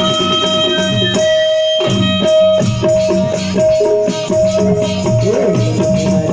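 Instrumental passage of Indian devotional folk music: a harmonium holds a steady note over a rhythmic pattern on hand drums. The drums drop out briefly about a second and a half in, then resume.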